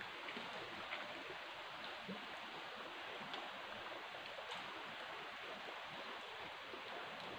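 Faint, steady rush of flowing water, with a few light ticks.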